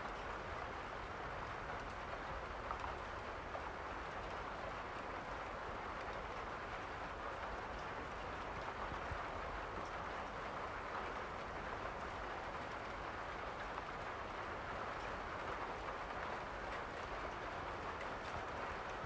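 Steady rain falling, an even hiss of drops without breaks.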